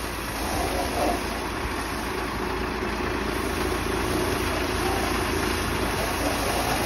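Cement mixer truck's diesel engine idling with a steady low rumble, under the continuous hiss of a hose's water jet spraying against the truck.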